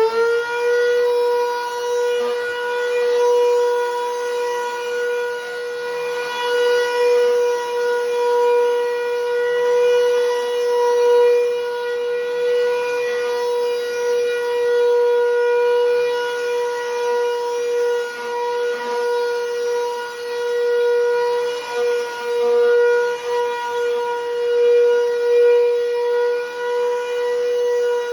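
Bissell Powerforce Helix Turbo upright vacuum's motor finishing its spin-up in the first moment, then running with an extremely loud, steady, high-pitched whine. The owner puts the noise down to a fan clogged with dirt and hopes it is not the bearings.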